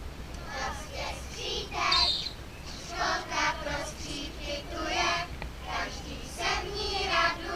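Voices of a group of young children in the open air, rising and falling in short phrases.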